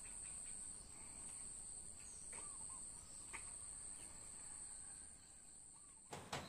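Faint outdoor garden ambience: a steady high-pitched insect drone with a few short bird chirps a couple of seconds apart. A few sharp clicks come near the end.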